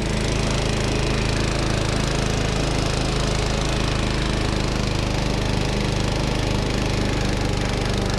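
Cub Cadet Model 80 hydrostatic lawn tractor's engine running steadily under load, with a regular throb about twice a second.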